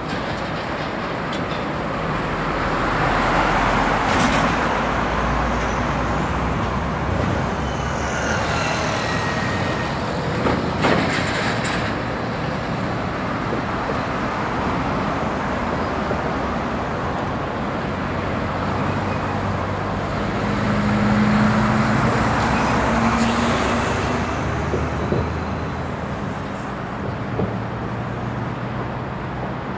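Heavy road traffic with container trucks driving past, under a steady traffic roar. Two pass-bys swell and fade, a few seconds in and again about two-thirds through, the second with a low engine drone. There are a couple of sharp knocks about a third of the way through.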